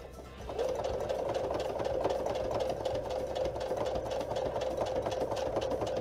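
Electric sewing machine starting up about half a second in and then running steadily, its motor humming and the needle stitching rapidly through sew-on Velcro tape and fabric.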